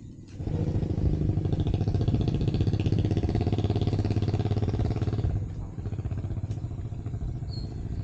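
Small motorcycle engine running close by with a rapid, even putter. It starts suddenly about half a second in and drops to a lower level after about five seconds.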